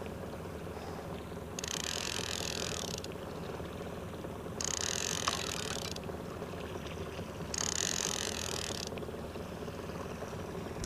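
Boat's outboard motor running steadily at trolling speed, with three bursts of high hiss about three seconds apart.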